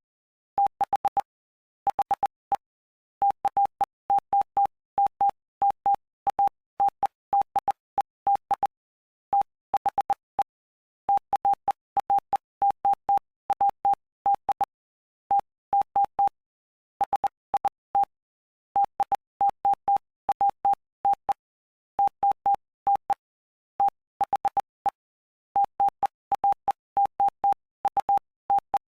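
Computer-generated Morse code: a single steady beep of roughly 800 Hz keyed on and off in dots and dashes, with short pauses between letters and longer pauses between words. It is spelling out Bible text from Mark chapter 8 for practice copying.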